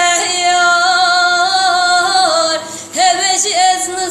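Young woman singing in a high voice, holding long wavering notes, breaking off briefly about two and a half seconds in and then carrying on.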